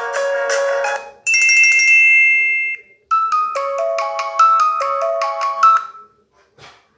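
Microsoft Lumia 535 ringtones played one after another, each cut short: a dense chord-like tone that stops about a second in, a brief high two-note tone, then from about three seconds in a quick melody of short notes that ends near six seconds.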